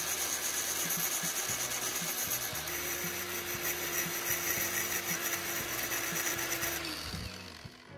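Cordless angle grinder running, its disc grinding down the tip of a spark plug spun in a cordless drill: a dense grinding rasp over a steady high motor whine. A lower steady hum joins about three seconds in, and both stop about seven seconds in.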